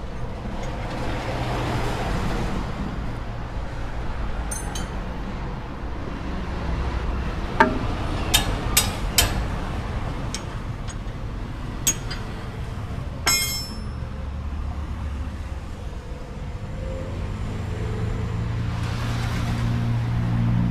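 Steady low mechanical hum of vehicles in the background, broken by about six sharp metallic clinks of hand tools in the middle stretch. The clinks are tools working the lock pin out of an upper ball joint on the front suspension.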